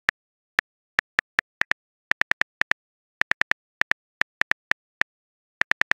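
Phone keyboard typing sound effect: a run of short, sharp clicks in uneven clusters of two to four, like taps on a touchscreen keyboard.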